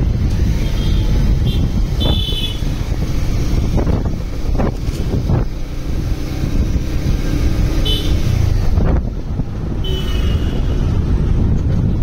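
Ride on a Bajaj Pulsar UG3 motorcycle through city traffic, heard from the saddle: a steady low rush of wind on the microphone over the running engine. Short high horn toots from other traffic sound four times.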